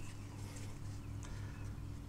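Faint handling sounds as gloved hands work a new rubber O-ring onto a plastic oil filter housing cap, over a steady low hum.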